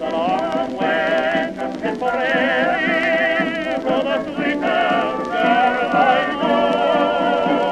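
Old, thin-sounding recording of a music-hall marching song, with a wavering vibrato melody line over accompaniment. It has almost no deep bass or high treble.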